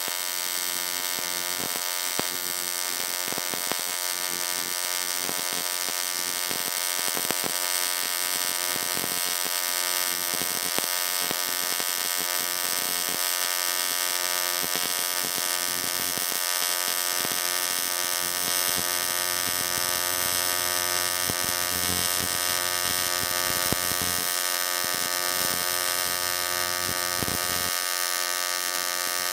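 AC TIG welding arc on aluminum, from an HTP Invertig 221, giving a steady high buzz as a continuous bead is run.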